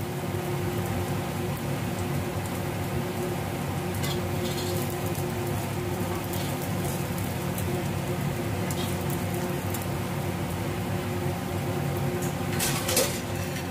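Egg-dipped bread slices sizzling in hot oil on an iron tawa: a steady frying hiss over a low hum. A few light clicks of a metal spoon against the pan, the loudest near the end.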